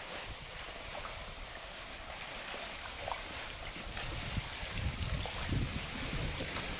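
Wind buffeting the microphone, with gusts that get stronger about four seconds in, over a steady outdoor rushing hiss.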